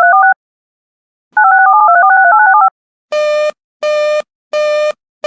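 Rapid strings of touch-tone (DTMF) dial tones: one ends just after the start, and another runs for over a second. They are followed by a buzzy busy-signal-style beep repeating about every three quarters of a second. This is the telephone-tone end-of-message signal closing one emergency alert bulletin.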